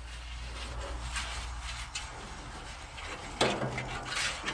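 Metal spatula scraping over the steel top of a Blackstone flat-top griddle in several strokes, spreading a thin coat of oil over the seasoned surface after cleaning. The loudest, sharpest stroke comes about three and a half seconds in.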